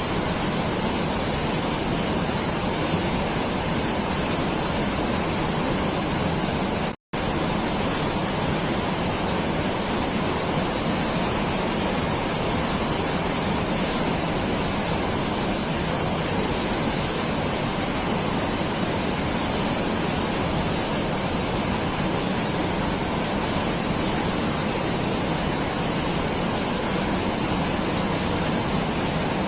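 Steady, even rushing noise with no change in level, cut off completely for a split second about seven seconds in.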